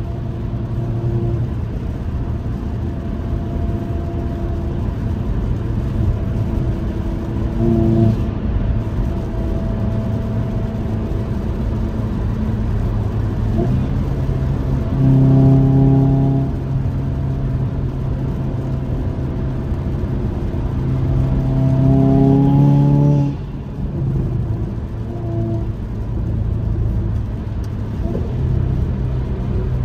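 Hyundai Kona N's turbocharged four-cylinder engine and road noise heard from inside the cabin while cruising. About three-quarters of the way through, the engine note climbs for a couple of seconds under acceleration, then drops off abruptly.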